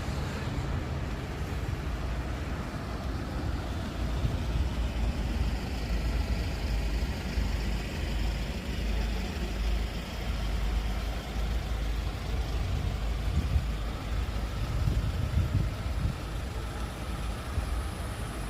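Road traffic: a motor vehicle's engine rumbling steadily, with passing tyre noise.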